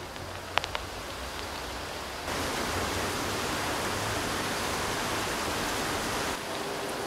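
Steady hiss of falling rain, growing louder about two seconds in and easing back near the end, with a few sharp clicks like drips early in.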